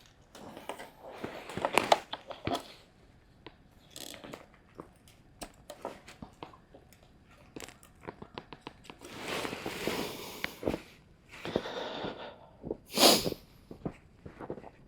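Scattered clicks, rustling and footsteps of someone moving about and handling things in a small room, with a longer rustling stretch partway through and a louder burst near the end.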